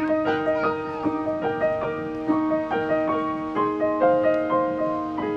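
Background music: a gentle piano melody over a held low note, starting abruptly at the start.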